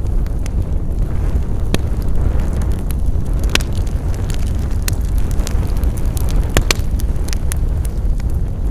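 Wood fire crackling: a steady low rumble of flames with irregular sharp pops and snaps, a few louder ones scattered through.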